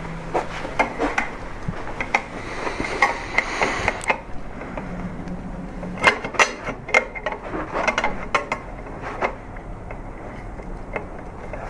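Light metal clicks, taps and a short scrape as a Troy Alpha handguard rail is handled and slid onto an AR-15 upper receiver held in a vise. There is a rough scraping stretch a couple of seconds in, and a denser run of clicks past the middle.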